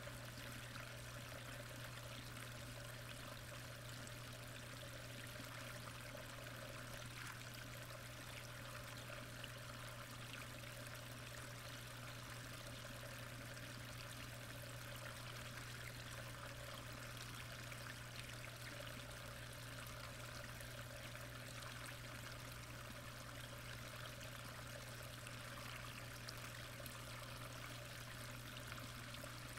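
Steady rushing of pond water heard from underwater, with a constant low hum beneath it.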